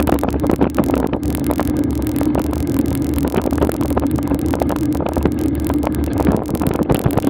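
A vehicle engine running steadily at low road speed, with a constant hum, while wind buffets the camera microphone in frequent crackles.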